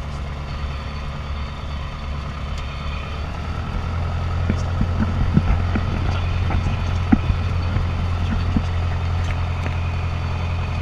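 Alon A2 Aircoupe's air-cooled four-cylinder engine and propeller running at low taxi power, heard from inside the cockpit. It gets louder about four seconds in, and short knocks and rattles come from the airframe rolling over the grass.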